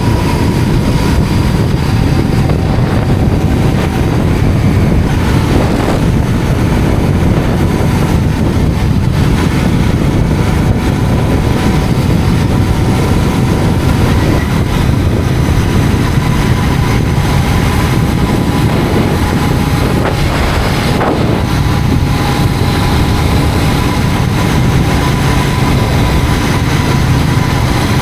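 Royal Enfield GT 650's 648 cc parallel-twin engine running steadily at road speed, picked up by a helmet-mounted microphone along with wind noise.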